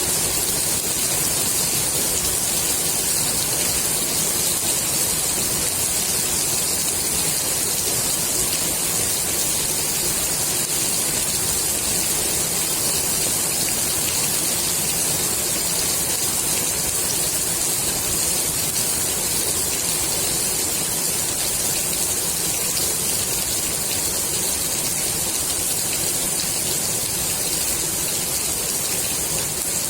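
Steady rain falling on the water of a swimming pool, an even hiss that does not change.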